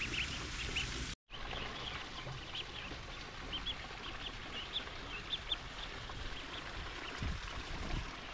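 Khaki Campbell ducklings peeping over and over in short, high calls; the sound cuts out completely for a moment just over a second in.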